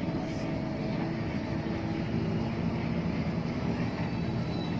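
Bus engine and drivetrain running with road rumble, heard from inside the driver's cab, a steady drone while the bus is under way.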